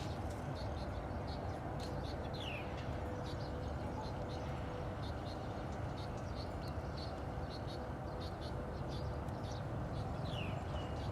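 Baby birds cheeping: short high chirps repeated over and over, with a couple of quick falling notes, over a steady low background noise.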